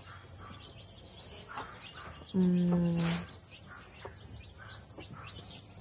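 Steady high-pitched chorus of crickets, with a person's short hummed 'mmm' about two and a half seconds in.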